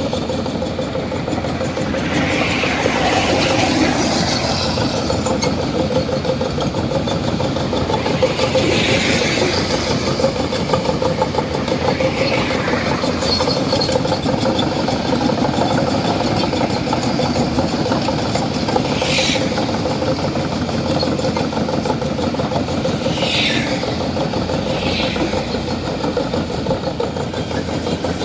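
Excavator's diesel engine running steadily, with a handful of brief higher-pitched squeals or whines sweeping over it at scattered moments.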